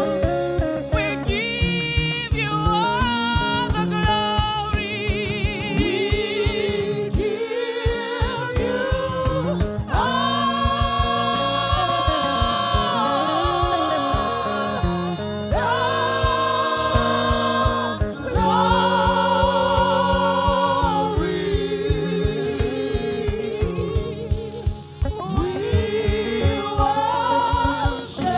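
Gospel worship song: sung voices holding long notes with vibrato over a band accompaniment with a steady drum beat.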